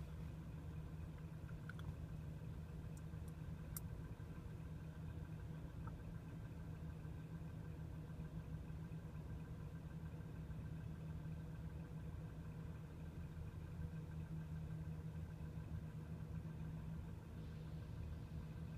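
Mobile crane's diesel engine running as a steady low drone while it hoists a load.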